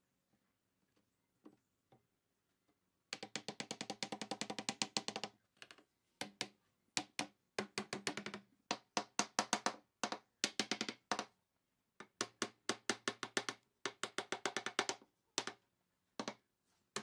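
Rapid, light tapping on wood: sharp wooden knocks, about ten a second, in bursts of a second or two with short gaps, from a pine frame joint being tapped together.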